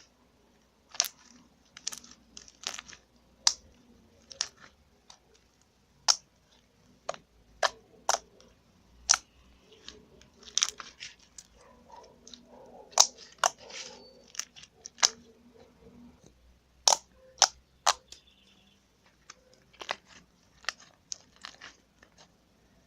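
Hands kneading slime with EVA foam clay being worked into it, making irregular sticky pops and clicks.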